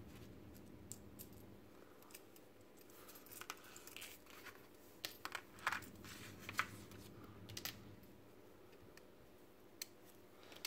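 Faint scattered clicks and light rustling as a small plastic robot servo motor and its cable are handled by hand, with the clicks coming thickest in the middle.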